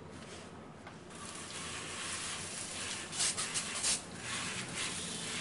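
Water spraying from the handheld shower head of an Alpha instant electric water heater as the water is turned on: a steady hiss that builds up about a second in, with a few louder surges of spray a little after three seconds.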